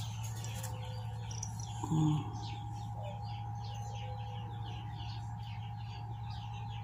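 A bird chirping in a rapid, steady series of short descending notes, about four a second, over a steady low hum. A brief low voice-like sound comes about two seconds in.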